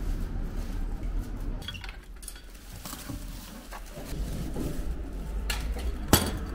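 Shoe locker in use: small clicks and clinks of its door and lock, with one sharp click near the end as the door is shut and the key is pulled out.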